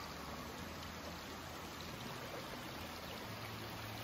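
Small forest creek running as a soft, steady rush of water, running high with melting snow and recent rain.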